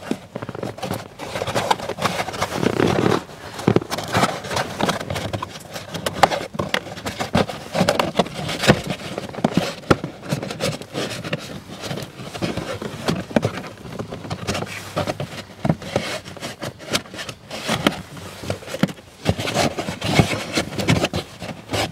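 Hands rubbing and scraping a stiff foam-and-felt trim panel as it is pushed and tucked into place under a Volkswagen Passat B6's dashboard. Irregular scrapes and small knocks run throughout.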